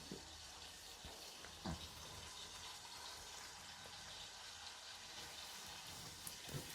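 Faint steady hiss, with a soft knock a little under two seconds in.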